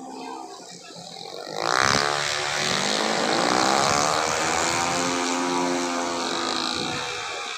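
A race-tuned automatic scooter engine passes at high revs. A loud whine rises sharply about two seconds in, then its pitch slides slowly down as it goes by and fades near the end.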